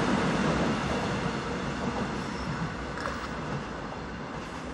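Seoul Metro Line 1 rheostatic-control electric train running past close by, its wheel-and-rail noise fading steadily as it draws away.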